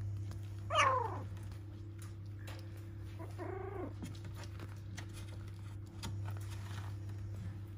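Four-week-old puppies whimpering as they play: a short yelp falling in pitch about a second in, and a longer whine around the middle, over light scratching and patter of paws on the bed's pad.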